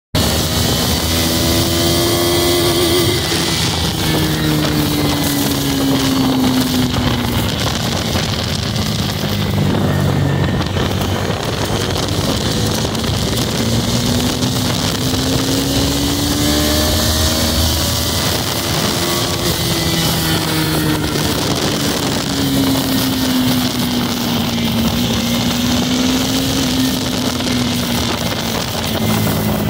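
Bajaj Dominar 250's single-cylinder engine running hard under throttle in third gear, its note slowly rising and falling several times as the revs climb and ease off. Heavy wind rushes over the microphone at road speed.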